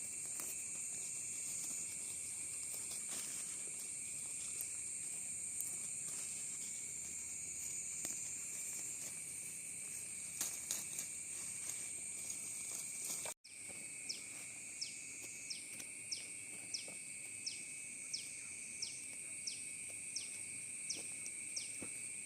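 Steady high-pitched chorus of insects such as crickets or cicadas. In the second half a short falling chirp repeats about every two-thirds of a second.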